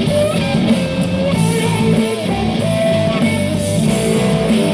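Loud guitar rock music played through Creative Pebble Plus 2.1 desktop speakers and subwoofer at full volume, steady and bass-heavy.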